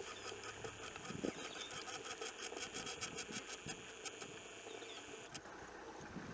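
Faint outdoor background sound: a steady high-pitched buzzing with quick faint ticks and a low hum beneath it.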